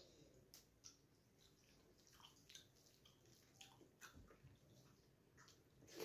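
Faint wet squishing and small clicks of fingers kneading rice and dal on a metal plate, with a louder wet smack at the very end as the handful goes into the mouth.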